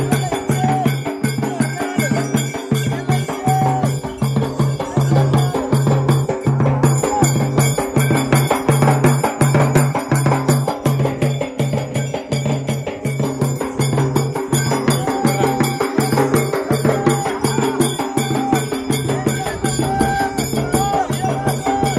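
Traditional folk music: drums beat a steady, even rhythm of about two beats a second, with lighter percussion and a higher melodic line over them.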